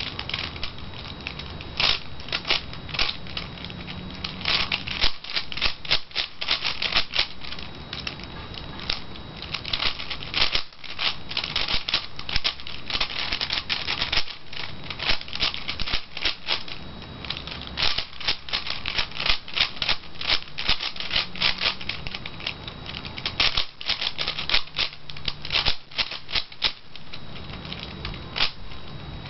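Plastic layers of a V-Cube 5 (5x5 twisty puzzle) clicking and clacking under quick finger turns, in rapid runs of turns broken by brief pauses.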